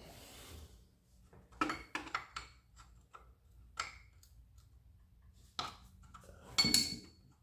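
A hand tool clinking and knocking against metal around an engine block's crankcase vent tube as it is being loosened: a short rustle at the start, then a few separate clicks, the loudest near the end with a brief metallic ring.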